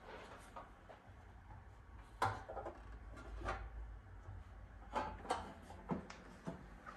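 Scattered light knocks and rubbing of things being handled, about half a dozen separate taps, over a low rumble.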